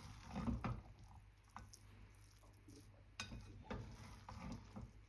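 Faint sounds of eating prawn pulao from a plate: several soft clicks and squishes, over a steady low hum.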